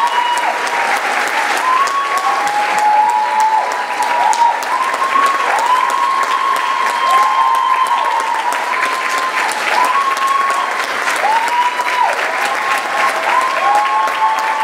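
Audience giving a standing ovation: dense, steady applause with many high whooping cheers that hold a note and then drop in pitch, overlapping one another.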